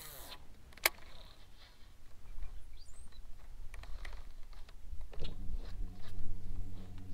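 A sharp click about a second in, then light clicks of a baitcasting reel being handled and wound in. About five seconds in, a steady low motor hum starts and keeps going.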